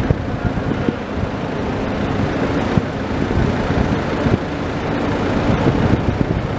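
Steady mechanical rumble and hum of dockside crane machinery, with a few short knocks scattered through it.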